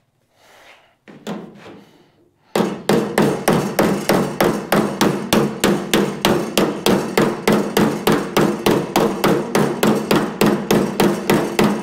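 Door skinning hammer striking the flange of a new steel door skin against a hand-held dolly, hemming the skin's edge over the door frame. After a couple of seconds of light handling, the blows start about two and a half seconds in and keep a steady rhythm of about four a second, the sheet metal ringing between them.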